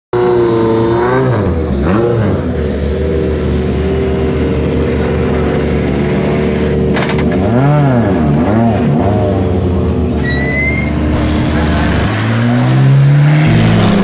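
Citroën DS3 WRC rally car's turbocharged 1.6-litre four-cylinder running at low revs as the car rolls slowly, with two quick throttle blips about halfway through. Near the end a second rally car's engine revs higher.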